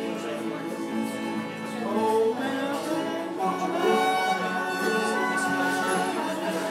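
A man singing a song over acoustic string accompaniment, the voice and instruments going on steadily throughout.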